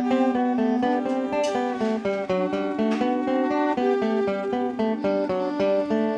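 Live instrumental folk tune on clarinet, strummed acoustic guitar and fiddle, the guitar keeping a steady strummed rhythm under the held melody notes.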